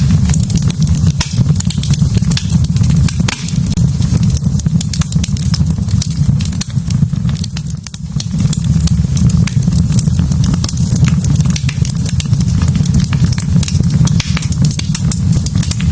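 Wood fire burning in a fireplace: a steady low rumble with frequent sharp crackles and pops from the logs, briefly softer about halfway through.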